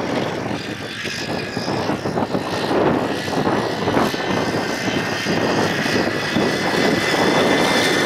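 Wind buffeting the microphone over the steady whine of a motor-assisted three-wheel bicycle, growing a little louder as it rides closer.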